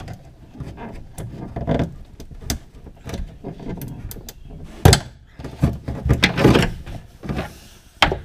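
Hands working inside a steel pickup tailgate, pulling the old wiring harness and its plastic retaining plugs out through the brackets: scattered clicks, knocks and rustling, with a sharp knock about five seconds in.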